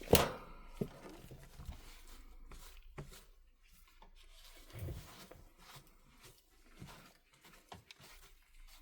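Small handling noises: scattered light clicks, taps and short rubbing scrapes from tools and tablet parts being cleaned and moved on a work surface, with a sharper click right at the start.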